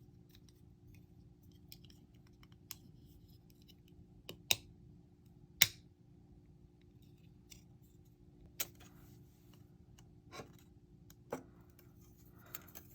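Sharp, scattered plastic clicks and snips as Haro Gunpla kit parts are separated from their plastic runners, about seven in all, the loudest two near the middle, over a faint steady hum.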